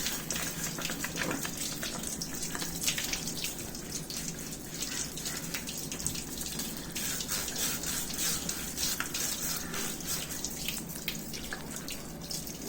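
Tap water running and splashing over a washing machine's drum lint filter while it is scrubbed with a brush, with irregular scratchy brush strokes over the steady water.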